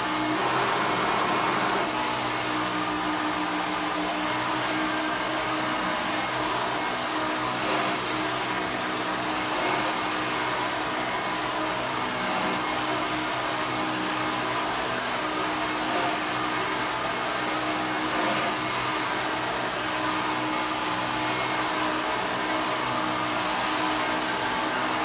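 1989 Hoover Elite 350 upright vacuum cleaner running steadily on high, its motor whirring and the brush pushing across carpet.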